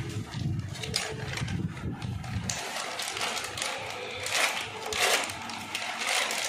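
Plastic packaging crinkling and rustling as it is handled and opened, loudest in two bursts near the end. A low rumble runs underneath for the first couple of seconds.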